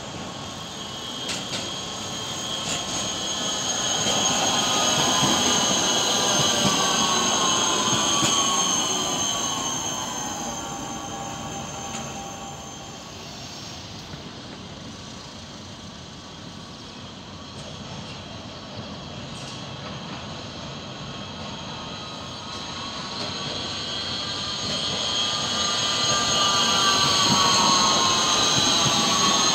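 Electric trams passing close on street track, the later one a Škoda 13T: electric drive whine with pitch gliding down, over wheel-on-rail rumble. The first pass is loudest about five to nine seconds in and fades; the second grows louder in the last few seconds.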